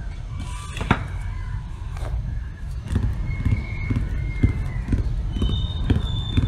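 Fingertips tapping and rubbing on a shrink-wrapped book, the plastic film crinkling, with light taps coming about twice a second in the second half, over a steady low rumble.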